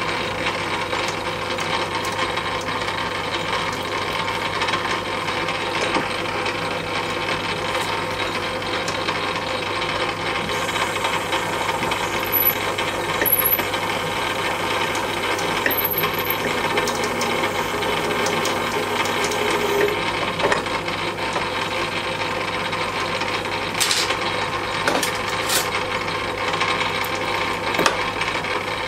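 Metal-turning lathe running steadily with a continuous hum, its tool cutting the spinning metal blank: facing across the end, then a centre drill fed in from the tailstock. A few light clicks and ticks.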